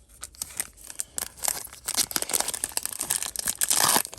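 Foil booster-pack wrapper being torn open and crinkled by hand: a run of irregular crackles and rustles that grows busier and louder toward the end.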